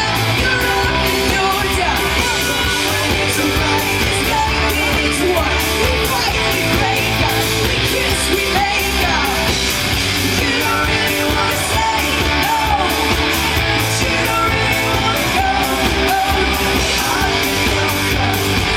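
Live pop-rock band playing with a sung vocal: a steady drum beat, guitars and bass at full volume in a sound-check run-through.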